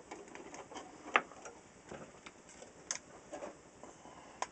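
A few light, irregular clicks and taps from wires and leads being handled against the radio's metal chassis and circuit board during rewiring.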